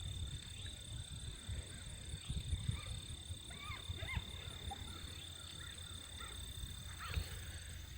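Rabbit beagles giving a few faint, short yips while hunting through brush, scattered across the middle, over a steady high-pitched tone and low rumble.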